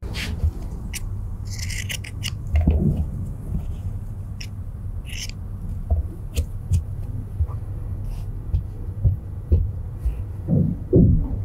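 Fabric and fringe being handled and arranged on an ironing board: soft rustles, with scattered light clicks and taps, over a steady low hum.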